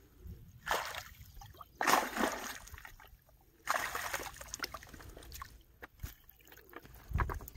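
Water splashing and streaming off a nylon mesh keep net as it is hauled up out of the river, in three bursts, the last one longest.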